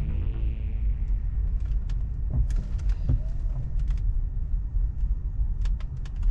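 Low, steady rumble of a Tesla Model 3 on the move, heard inside the cabin, with a few faint clicks.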